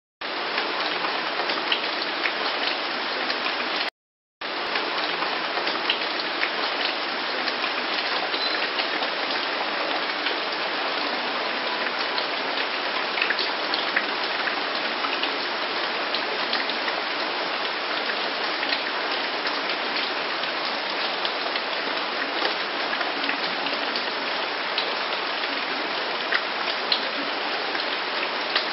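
Steady rain falling: an even hiss with scattered sharp ticks of single drops. The sound cuts out completely for about half a second, about four seconds in.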